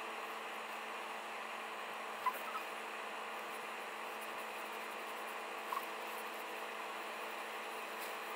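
Steady hiss and hum of room tone, with two faint, short high squeaks, one a little over two seconds in and one near six seconds in.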